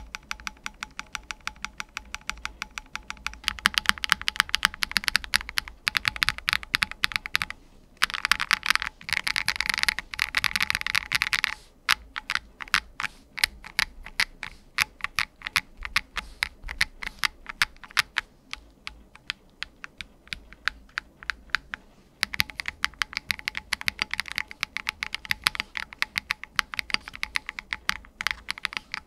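Typing on a Noir Z1 mechanical keyboard built with a PC plate, silicone gaskets and Poron case foam: a continuous patter of key clicks. It comes in several fast flurries with slower, more spaced stretches in between.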